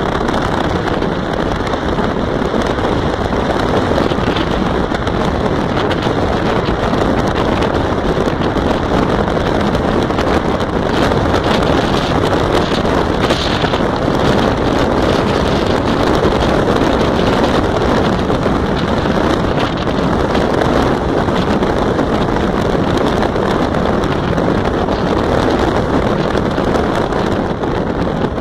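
Steady rush of wind and road noise from a car driving at speed on a highway, with wind buffeting the microphone.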